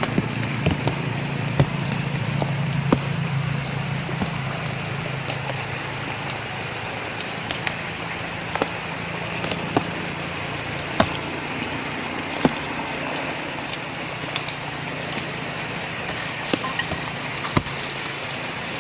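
Steady rain falling, with scattered sharp ticks and knocks over it.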